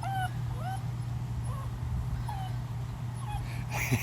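Puppies whimpering: a run of short, high-pitched whines in quick succession that thin out after about two seconds.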